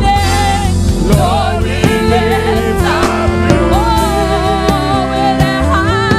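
Gospel worship music from a choir and band: a wavering, sliding lead voice over held chords and bass, with regular drum hits.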